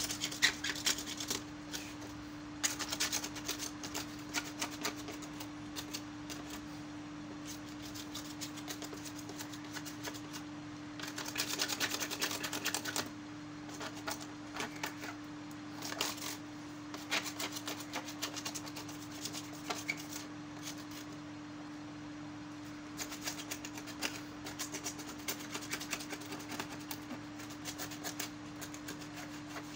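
Scrubbing and wiping the plastic louvred grille of a room air cooler: spells of scratchy rubbing and rapid ticking that come and go, over a steady hum.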